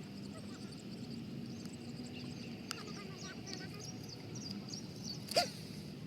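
Outdoor pond-side ambience: a steady high insect drone over a low background hum, with small birds chirping in quick short notes through the second half. One short, sharper and louder sound, a call or a knock, comes about five seconds in.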